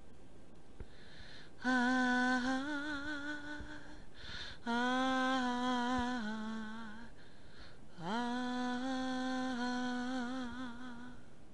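A woman's voice singing three long wordless notes with vibrato. The second note steps down in pitch near its end, and the third slides up into place.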